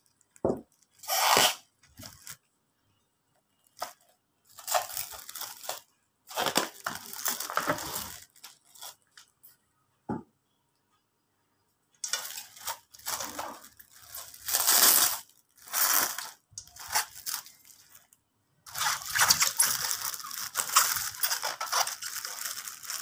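Plastic cling film being pulled, stretched and crinkled over a stainless steel bowl, in irregular crackling bursts with short quiet pauses between them.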